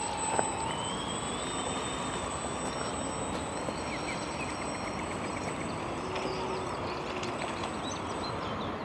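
Electric drive motors of a remote-control bait boat running as it pulls away across the water: a thin whine that rises in pitch over the first couple of seconds and then holds steady, over a constant hiss.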